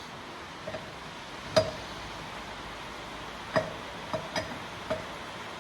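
Sharp metallic clicks and knocks from work on a car wheel during a tyre change, such as wheel nuts and hand tools being handled. There are about six irregular strikes, and the loudest comes about a second and a half in.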